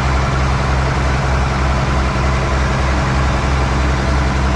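Fishing boat's engine running steadily under load while it tows a shrimp trawl, with water churning at the stern.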